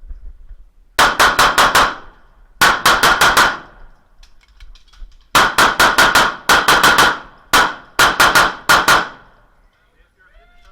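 Airsoft gun fired in six quick strings of two to six sharp, metallic-sounding shots, with short pauses between the strings.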